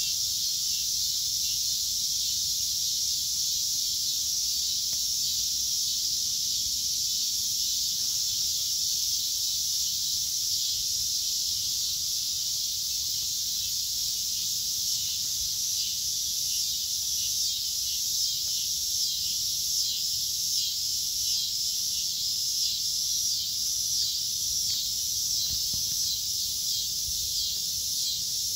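Steady, high-pitched chorus of insects, taking on a regular pulsing rhythm about halfway through.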